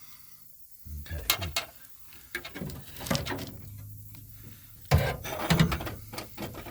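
Metal clattering and knocking as tools and parts are handled and set down, in a few short clusters a couple of seconds apart.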